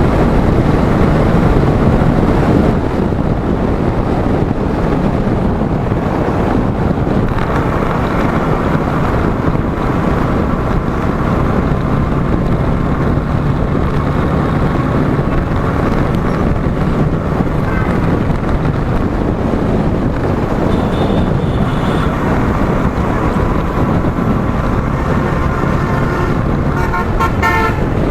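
Steady wind rush and road noise on a moving motorcycle, with traffic around it and vehicle horns sounding now and then, including a quick run of short honks near the end.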